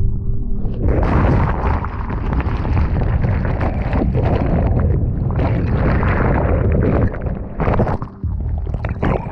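Turbulent whitewater from a broken wave churning around a camera held underwater: a loud, muffled rumbling rush of water and bubbles that dips briefly near the end.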